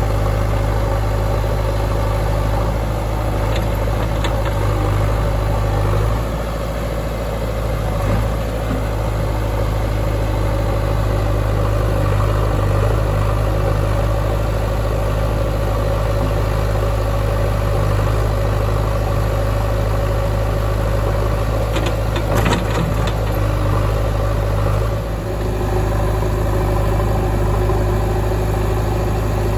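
Diesel engine of farm machinery running steadily near idle, with a short cluster of sharp knocks about three-quarters of the way through and a brief dip in the engine note just after.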